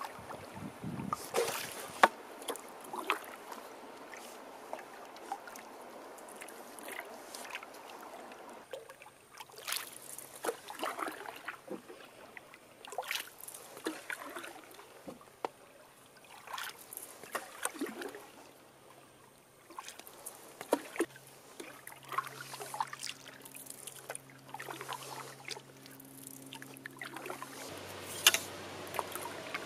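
Canoe paddling on calm water: a paddle dipping and pulling, with irregular splashes and drips every second or two.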